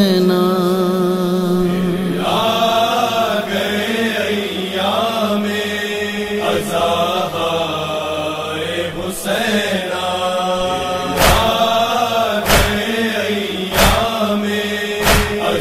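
A noha, a Muharram elegy for Husain, chanted by a solo voice in long, drawn-out melismatic lines over a steady low tone. In the second half, sharp beats come in about every 1.3 seconds.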